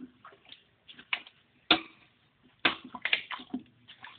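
Raw mango pieces being mixed by hand with oil and spices in a large vessel: irregular clicks and squelches of the pieces knocking together. The sharpest come about two seconds in and again about a second later.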